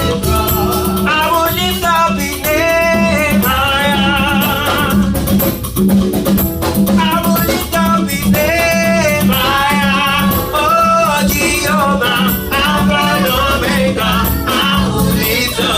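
Gospel praise music: voices singing over a band with a steady pulsing beat and light percussion.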